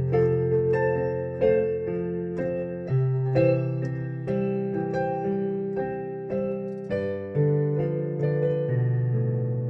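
Electronic keyboard playing a slow ballad: a melody over sustained chords and held bass notes, each note struck and left to ring.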